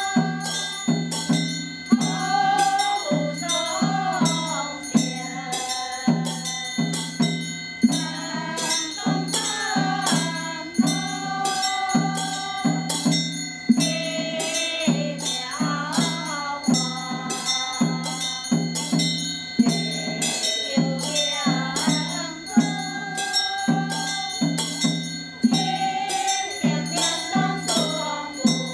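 Group of women chanting a temple scripture's closing hymn in unison, kept in time by a large wooden fish (muyu) struck steadily about twice a second. Small hand bells and a small cymbal ring above the chant.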